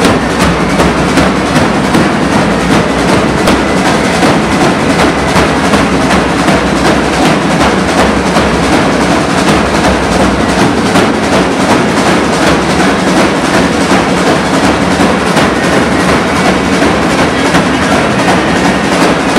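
Pipe band playing: bagpipes over fast, continuous drumming on side drums, with bass drum beats.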